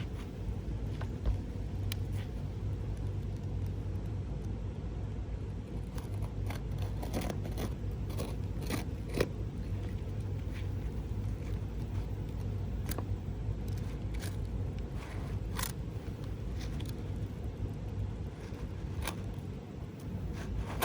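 A roof shingle being cut to length with a blade: intermittent short scraping and clicking strokes, mostly in the second half, over a steady low rumble.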